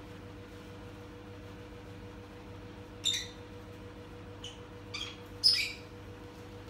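A few short, high-pitched chirps in the second half, the loudest about two thirds of the way through, over a steady low hum.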